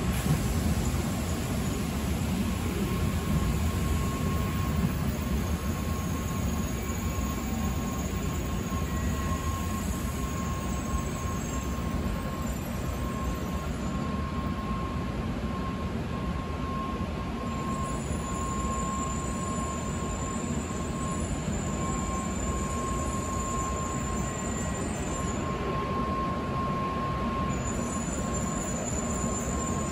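N700-series Shinkansen train pulling slowly into the station: a steady rumble of wheels on rail, with a thin steady whine throughout and fainter high squeals that come and go.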